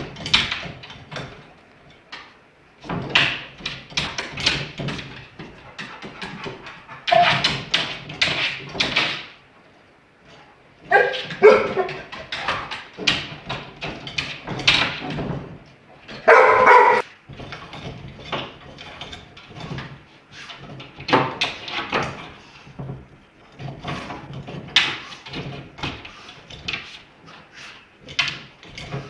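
Labrador retriever pawing and scratching at a wire cage over a wooden board: irregular rattling, clicking and scraping, in busy flurries. The dog gives a short vocal call twice, about eleven and sixteen seconds in.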